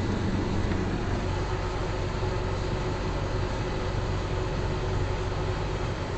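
Case 245 excavator's diesel engine running steadily: a low hum with a constant higher tone over it. About a second in, part of the low hum eases off.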